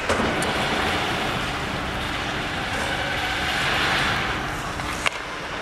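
Ice hockey play in an arena: a steady hiss and scrape of skates on the ice that swells around the middle, with a sharp knock about five seconds in.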